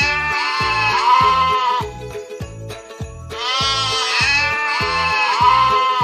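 Goat bleating: two long, wavering calls, the first fading out about two seconds in and the second starting about a second later, over background music with a steady beat.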